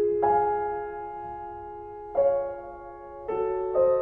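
Slow piano music: a few sustained notes and chords struck at a leisurely, uneven pace, each left ringing and slowly fading.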